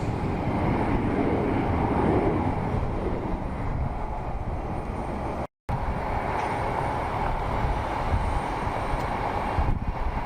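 Jet aircraft engines at an airport: a steady rumble with hiss, broken once by a brief total drop-out about halfway through.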